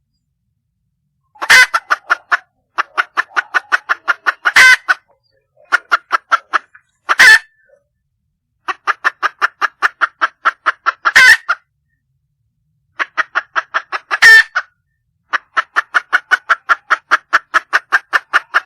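Junglefowl hen calling for a mate: runs of quick clucks, about six a second, broken five times by a louder harsh cry.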